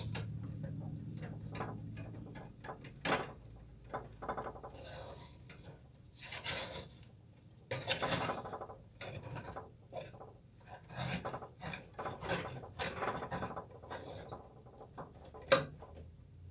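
Kitchen handling noises: scattered clicks, knocks and rubbing as things are moved about while cooking, with a low hum for the first couple of seconds and one sharp knock near the end.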